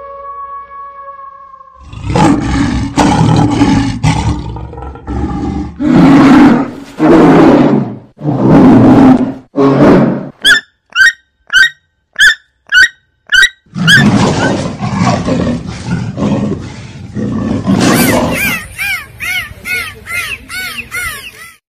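A string of loud animal roars: a held pitched call first, then several long rough roars, then about seven short sharp calls in quick succession. A further growling roar and a run of quick yelping calls follow near the end.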